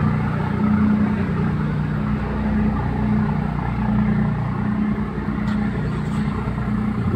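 Large diesel engine, likely a ferry's, running steadily with a low, even hum.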